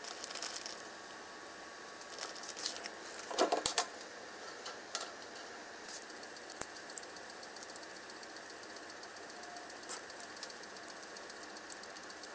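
Close handling noises of food prep: rustling and crinkling in the first few seconds, then scattered small crackling clicks as raw shrimp shells are pulled off by hand.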